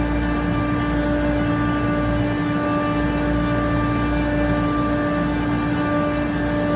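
A running Trane air-cooled screw chiller: a steady mechanical hum with one strong, even tone and a low rumble underneath.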